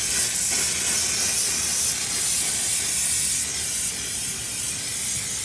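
Aerosol spray can spraying paint in one long continuous hiss, emptying the rest of the can.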